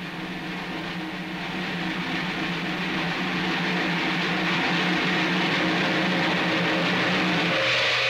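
Old film soundtrack: a rushing roar that swells steadily over a few held low notes, building to its loudest just before it breaks off near the end.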